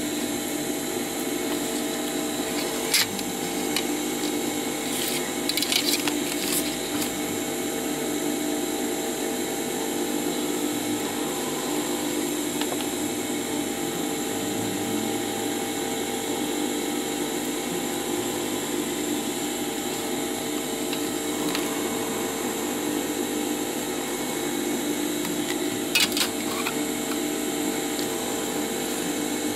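A steady hum of a small motor, holding several fixed tones without change. Over it come a few light clicks and taps from a marker and a plastic template sheet being handled, about three seconds in, around six seconds, and near the end.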